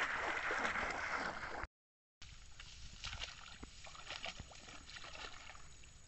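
Shallow floodwater sloshing and wet grass rustling as a person wades and handles things in the water. The sound cuts to dead silence for about half a second just under two seconds in, then resumes quieter with light splashes and rustles.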